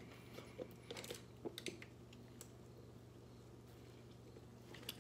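Near silence while a person sips a fountain soda through a straw: a handful of faint small clicks and swallows in the first couple of seconds, then only low room hum.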